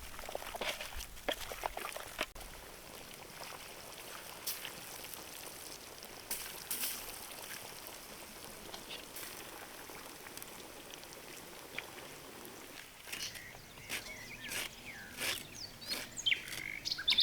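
Faint outdoor ambience with a few scattered light clicks and knocks. Small birds chirp repeatedly in the last few seconds.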